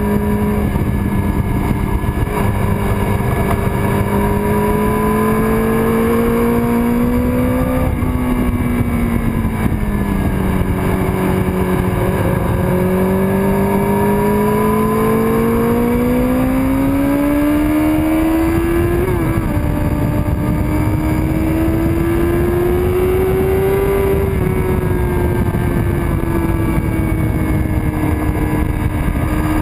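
1999 Kawasaki ZX-6R's inline-four engine at track speed, heard from the bike itself over rushing wind. Its pitch climbs slowly as it pulls, eases down about eight seconds in, then climbs again for a long stretch before falling away near the end.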